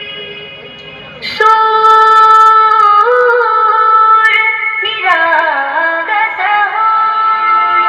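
Music: a woman singing long held notes that slide and step down in pitch, with little accompaniment and no bass. A new phrase comes in about a second and a half in, and another about five seconds in.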